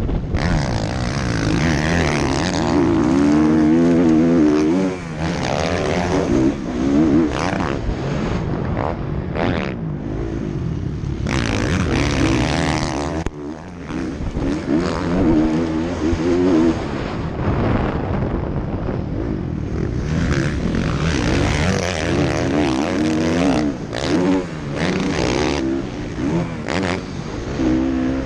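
Motocross bike engine racing on a dirt track, heard from the rider's helmet: the revs climb and drop over and over through corners and jumps, with rushing wind over the microphone.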